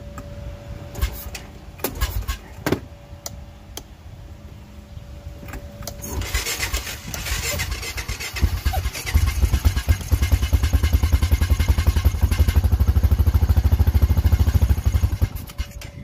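Honda Foreman ATV engine being cranked on its electric starter with the intake off and a hand held over the carburetor mouth. After a few clicks, a whirring builds from about six seconds in and turns into a fast, even chugging that lasts about seven seconds and stops shortly before the end. The carb is spitting back a lot of fuel, which the owner takes as a sign that it is running too rich or has something wrong inside.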